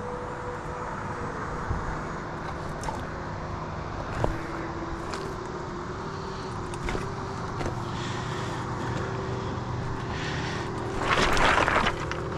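Boots stepping on loose trail rock: scattered clicks and knocks, and about eleven seconds in a louder crunching scrape lasting about a second, the kind of step the hiker hears as making noise. A steady engine drone runs underneath.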